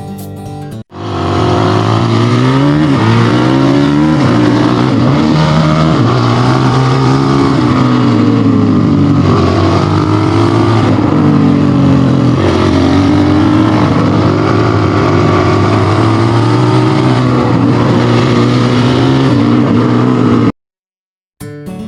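Motorcycle engine running, revving up and down in the first few seconds, then holding a steadier pitch with small wobbles. It cuts off suddenly near the end.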